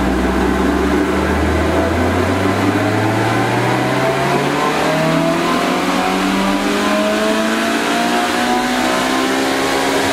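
Toyota blacktop 20-valve 4A-GE 1.6-litre four-cylinder engine on a full-load dyno pull, revs climbing smoothly and steadily from low in the range up to the top end, levelling off near the end as the run finishes. It breathes through a decat exhaust and is on a warm-up run.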